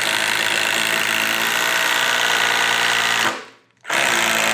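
Milwaukee M18 impact driver boring a 1/2-inch Red Helix Shockwave titanium drill bit into wood, running steadily at full speed under load. It stops a little over three seconds in and starts again about half a second later.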